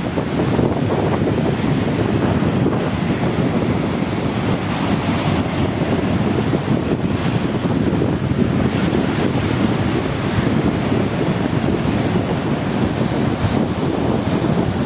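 Sea water washing and churning steadily, with wind buffeting the microphone as a constant low rumble.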